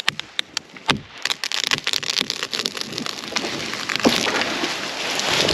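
A cut tree slowly falling: separate sharp cracks of wood giving way, building into a dense crackling and snapping of breaking branches, loudest about four seconds in and again near the end.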